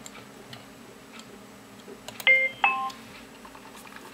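Two-note electronic chime from the EchoLink program on the computer, a higher note then a lower one, a little past two seconds in: the program's sound for disconnecting from the repeater.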